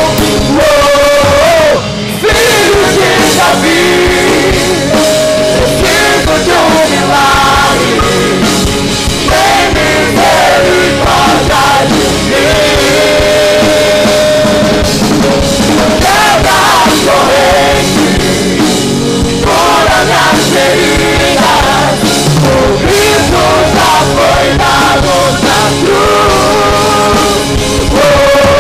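Live Christian worship band playing rock-style music: lead vocals sung over a drum kit and keyboard, loud throughout, with a brief drop in level about two seconds in.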